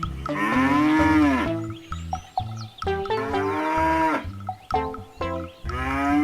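Cow mooing: three long calls, each rising then falling in pitch.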